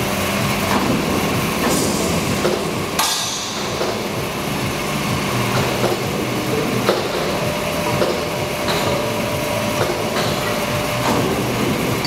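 Hydraulic drive of a CNC four-roll plate rolling machine running as its hydraulic side support arms lower, a steady machine noise with a faint steady whine at times. A few sharp metal knocks come through, the clearest about three seconds in.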